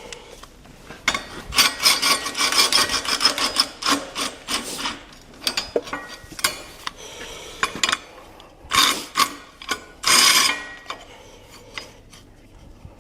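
Cordless impact gun driving fasteners in several bursts, a fast rattling hammer, with the longest run about a second in and two short, loud bursts near the end.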